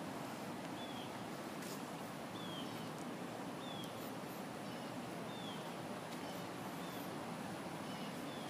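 A bird repeating a short, high chirp about every second and a half over a steady outdoor background hiss.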